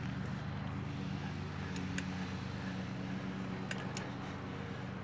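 KBO Breeze e-bike being ridden at speed: a steady low hum with tyre and wind noise, and a few light ticks about two and four seconds in.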